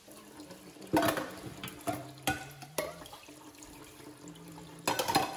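Tap water running into a stainless steel sink while metal camping bowls are washed. Several sharp clanks of metal bowls against each other and the sink: one about a second in, two more a couple of seconds in, and a quick cluster near the end.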